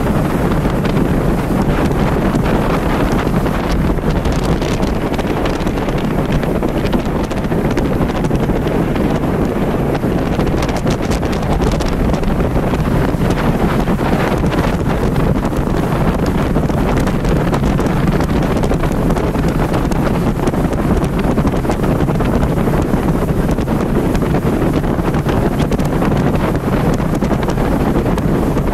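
Steady wind rushing over the microphone aboard a motorboat underway, with the noise of the running boat and water beneath it.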